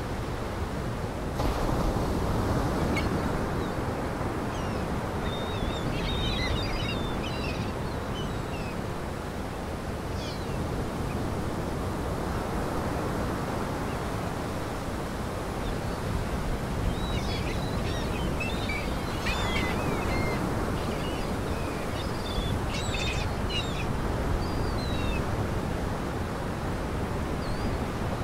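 Steady rush of lake waves washing against the shore, with several bursts of short, high chirping bird calls over it.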